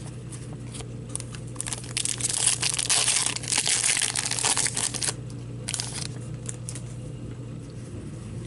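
Foil wrapper of an Upper Deck Series 2 hockey card pack crinkling and tearing as the pack is opened: a dense crackle lasting about three seconds, then a couple of short rustles, over a steady low hum.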